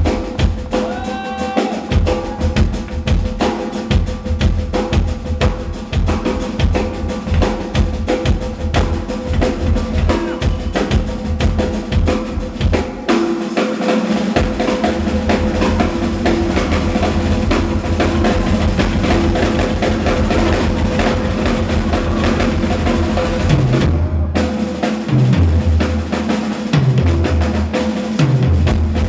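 Rock drum kit played fast and hard: rapid snare and bass-drum strokes and rolls, with other instruments holding notes underneath. The playing breaks off briefly a little after the middle and then resumes.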